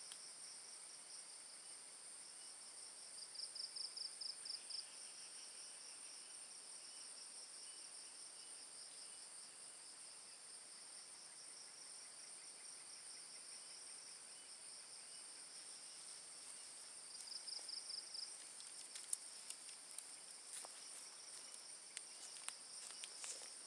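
A steady high-pitched chorus of night insects keeps going throughout, with a louder pulsing trill rising out of it twice. In the last few seconds there are faint scattered clicks and rustles.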